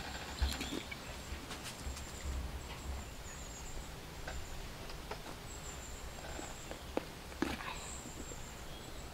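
Soft rustles and a few sharp clicks as hands handle a gutted duck carcass on banana leaves, over a low rumble; a faint high buzz comes and goes.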